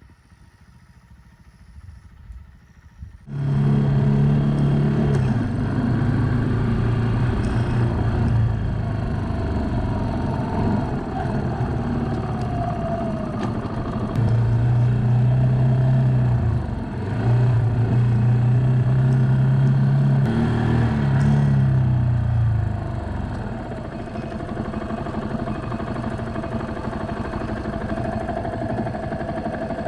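Motorcycle ride on a Suzuki GrassTracker BigBoy's single-cylinder engine, cutting in suddenly about three seconds in: the engine runs steadily at speed with a brief dip, like a gear change, then its pitch falls as the bike slows and it settles into a quieter low running.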